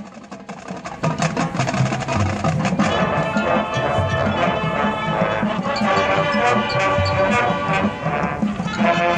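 High school marching band playing live: quiet for about the first second, then the full band comes in loud with held brass chords over drums.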